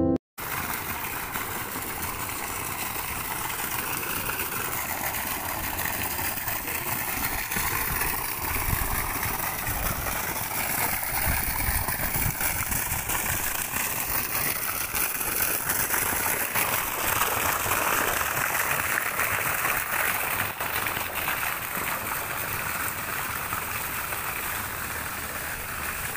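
Swimming-pool water splashing and lapping around a child paddling in an inflatable ring, a steady noisy wash.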